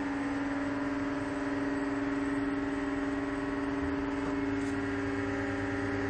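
Steady machinery hum in a factory hall: a constant low drone with several fainter steady tones above it, holding unchanged throughout.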